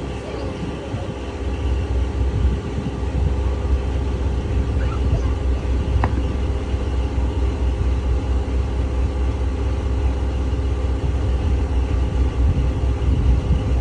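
A boat's engine running steadily under way, with a constant low rumble and a steady hum beneath a wash of noise, heard from on board.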